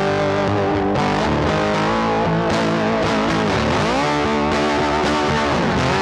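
Background music led by a distorted electric guitar over bass, with notes bent upward about halfway through and bent down again near the end.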